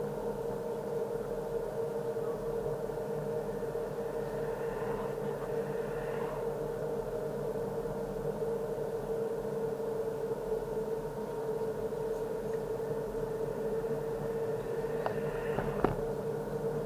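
Steady drone of road and engine noise heard inside a moving car, with a constant hum. Two short clicks come near the end, the second the loudest sound.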